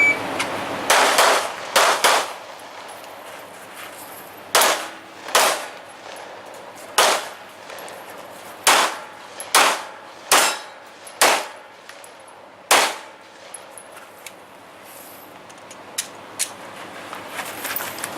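About ten gunshots fired one after another, roughly a second apart, with steel targets ringing as they are hit; a few fainter shots follow near the end.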